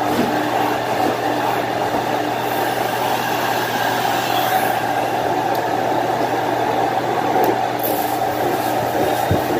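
Carpet-cleaning machine running with a steady drone, a few low knocks near the end.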